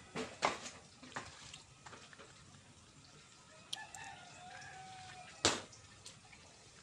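A rooster crowing faintly, one drawn-out crow about four seconds in. Sharp knocks and clicks come in the first second and just after the crow, the last one the loudest.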